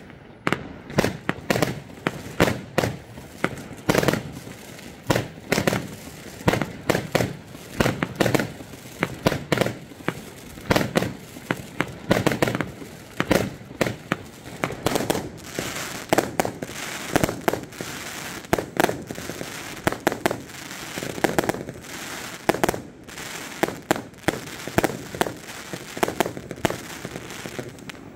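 Aerial fireworks going off in a long rapid barrage: sharp bangs a few times a second, with a denser crackling for several seconds around the middle.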